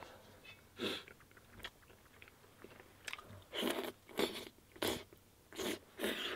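A man eating steaming hot food with chopsticks close to the microphone: about six short, sharp bites and mouth noises, one about a second in and the rest bunched in the second half.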